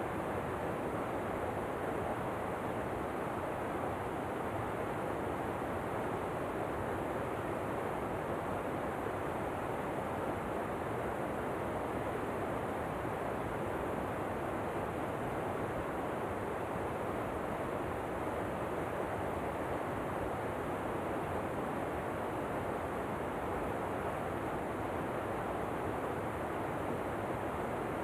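Waterfall: a steady, unbroken rush of falling water that does not change.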